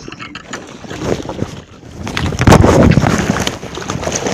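Loud scuffling and rustling of a camera being jostled among dry reeds, full of knocks, rising to its loudest about halfway through.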